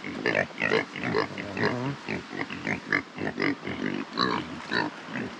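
Pigs grunting over and over in short calls, several a second.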